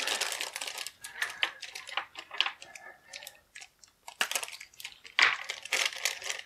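Clear plastic bags crinkling and rustling in quick, irregular bursts of sharp crackles as they are cut and torn open.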